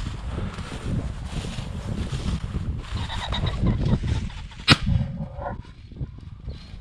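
A single shotgun shot about four and a half seconds in, over steady wind rumble on the microphone.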